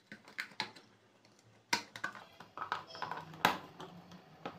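Light clicks and taps of plastic as a circuit-board panel is fitted and pressed onto a plastic project enclosure, with two louder knocks, one a little before halfway and one about three-quarters through.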